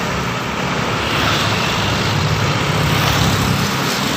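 Heavy road traffic passing close: a large vehicle's engine hum under loud tyre and road noise, steady, with no horn.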